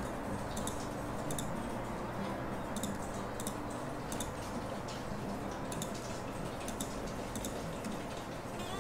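Computer mouse clicking now and then, short faint clicks at irregular intervals, over a steady low hum and hiss of microphone or room noise.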